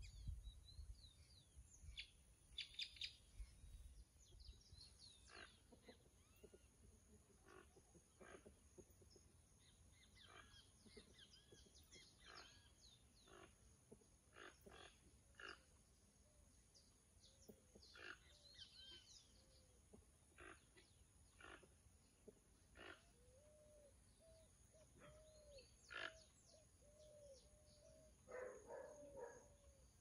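Faint birdsong from several birds: scattered chirps and short whistled notes throughout, with a series of lower, repeated arched calls near the end. Wind rumbles on the microphone in the first few seconds.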